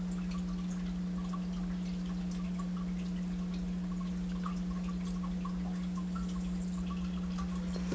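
A steady low hum, one constant tone with a fainter higher one above it, with faint light ticks from a plastic lotion bottle being turned in the hand.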